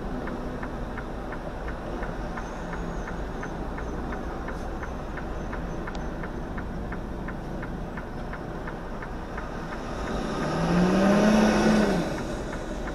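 Truck engine idling from inside the cab, a steady low rumble with a light ticking about four times a second. About ten seconds in, a louder engine note rises in pitch and then eases off over a second or so.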